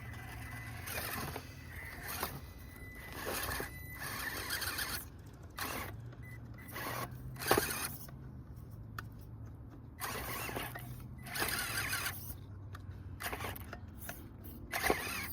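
A Traxxas TRX4M 1/18-scale RC crawler driving over rough ground: a low, steady hum from its small electric drivetrain, with repeated irregular bursts of crunching and scraping as its tyres work over dirt and rock.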